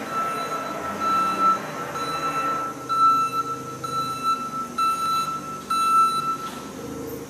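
An electronic warning beeper sounding about once a second, each beep a single high tone lasting about half a second, stopping shortly before the end, over the steady noise of running shop machinery.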